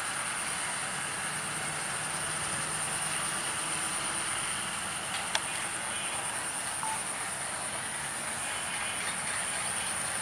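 Bangladesh Railway diesel locomotive running with a steady low rumble as it pulls a passenger train out of the station toward the listener. A steady high-pitched buzz sits over it, and there is one short click about five seconds in.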